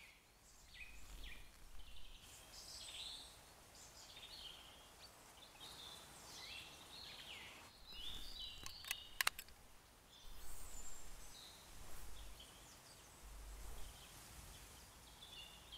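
Faint woodland birdsong, many small birds chirping and calling, with a few sharp clicks about nine seconds in.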